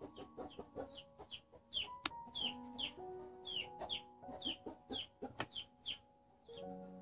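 Background music of held notes, with chicks peeping over it in quick, high, falling cheeps, several a second.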